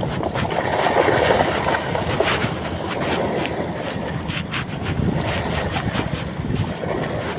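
Wind buffeting the microphone over waves washing on a shore, a steady rushing noise with irregular gusts.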